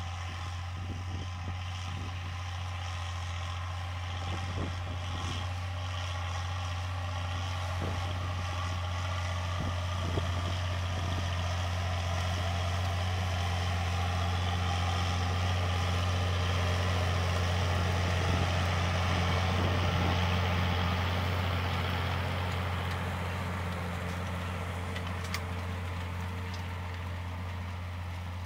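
Massey Ferguson 1134 tractor's diesel engine running steadily under load while pulling an offset disc harrow through scrub. It grows louder as it comes close, peaking about two-thirds of the way in, then eases off, with a few light knocks in the first half.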